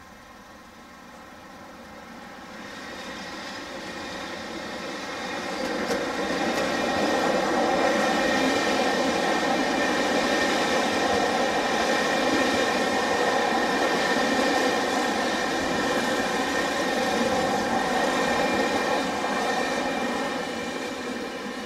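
Electric-hauled passenger train rolling through a station, its wheels running over the rails as the coaches pass. The noise swells over the first several seconds, holds steady, then fades near the end as the last coach goes by.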